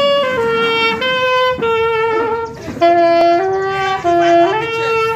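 A wind instrument playing a melody of held notes that step up and down.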